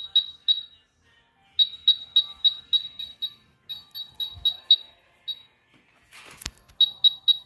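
UNI-T UT387E wall scanner's detection beeper sounding short high beeps about three a second. The beeps break off and start again several times, a sign that the detector is picking up and losing a target as it moves. A brief rustle and knock come just after six seconds in.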